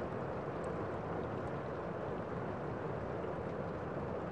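Steady city street din: a continuous low rumble and hiss with no distinct events standing out.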